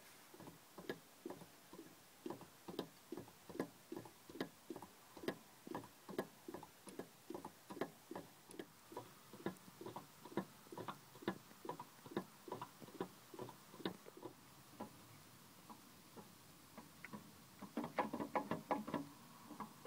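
Rhythmic ticking from the water pump and twin V-belt drive of a 1975 Citroën DSuper, about two to three ticks a second. The ticks fade briefly, then turn quicker and louder near the end as a finger presses on the belt. The ticking is taken as the sign of play in the worn water pump.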